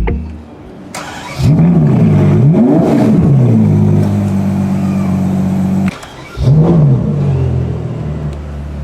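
Ferrari 812 GTS's naturally aspirated V12 being revved: the pitch climbs and falls away, then holds at a steady fast idle. It breaks off for a moment, then gives one more short rev before settling back to a lower, steady idle.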